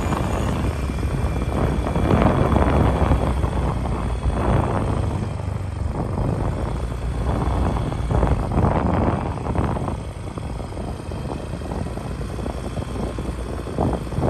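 Wind buffeting the microphone in uneven gusts, with a heavy low rumble.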